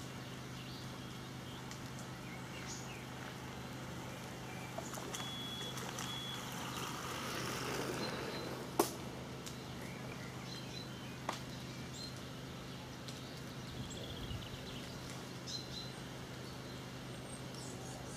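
Outdoor roadside ambience with a steady low hum, two short high beeps about five and six seconds in, and a sharp click about nine seconds in.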